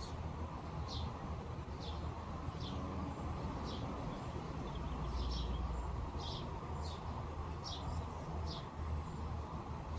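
A bird repeating a short, high chirp about once a second, over a steady low rumble.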